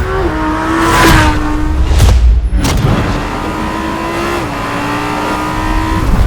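Lamborghini Huracán Performante's naturally aspirated 5.2-litre V10 running hard at high revs, its note held fairly steady with small shifts in pitch, overlaid by short whooshing pass-bys about one and two seconds in.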